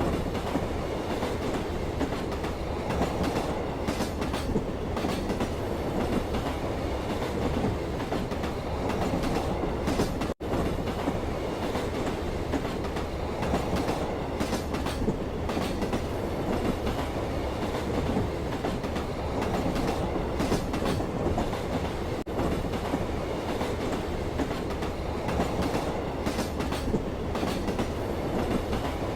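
Steady running noise of a train heard from a passenger's seat, a continuous rumble of wheels on the rails. It drops out for an instant twice.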